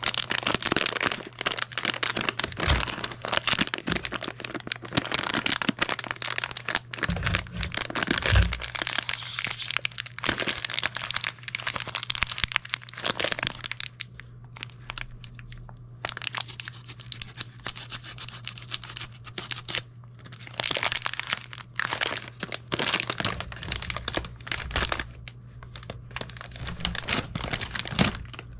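Foil-lined plastic snack packets crinkling and rustling as they are handled in a cardboard box, with a few dull thumps about seven seconds in. Near the end one packet of roasted peanuts is torn open.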